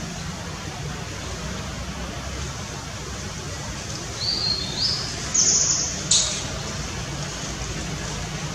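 A few short high-pitched bird chirps, one after another about four to six seconds in, ending with a sharp note, over a steady low rumble in the background.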